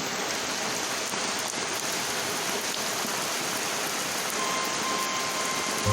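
Rain falling steadily, an even hiss of drops with no change in strength.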